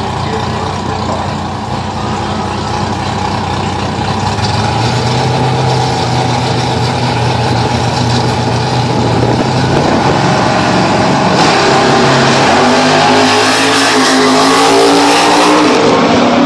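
Drag car's engine running at the starting line, then launching down the strip about twelve seconds in, its pitch climbing as it accelerates hard and grows louder.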